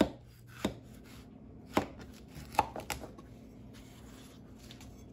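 Kitchen knife cutting through a cantaloupe and knocking on a plastic cutting board: about six sharp knocks of the blade in the first three seconds, the first the loudest, then only a faint steady hum.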